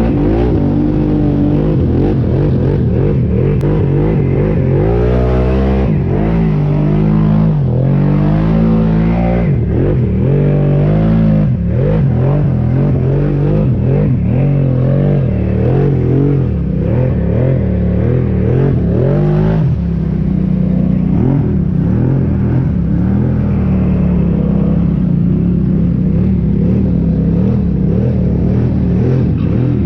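ATV engine revving up and down repeatedly under load, then running at a steadier, slightly higher pitch from about two-thirds of the way in.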